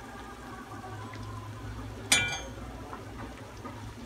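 A pitha batter cake frying gently in hot oil in a wok, a soft steady sizzle with small pops. About two seconds in, the metal slotted skimmer clinks once against the wok with a brief ring.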